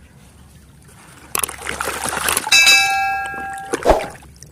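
A second of rustling, splashing noise, then a bright bell-like chime that rings steadily for about a second and stops, and a sharp click near the end.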